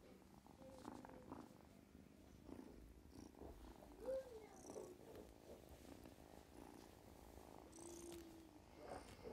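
Faint, soft kitten mews: a few short calls, the clearest one rising and falling about four seconds in, over a low rumble.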